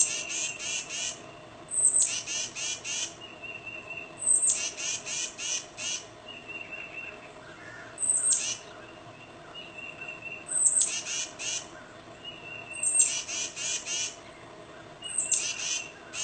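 Tufted titmouse calling: each phrase is a high note sliding down, followed by a quick run of three to five repeated notes. The phrase comes seven times at intervals of about two seconds.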